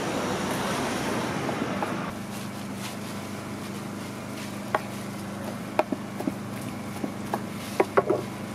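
Large kitchen knife chopping sundae (Korean blood sausage) on a wooden cutting board: a run of short sharp knocks in the second half, over a steady low hum and background noise.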